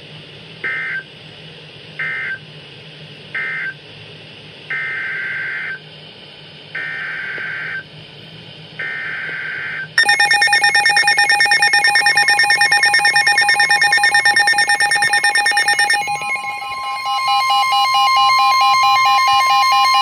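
NOAA Weather Radio SAME data bursts: three short warbling end-of-message bursts, then three longer header bursts that encode the next alert, a flash flood warning. About ten seconds in, a loud, rapidly pulsing electronic alarm from the weather radio receivers starts. About six seconds later a steady weather radio alert tone near 1 kHz joins it.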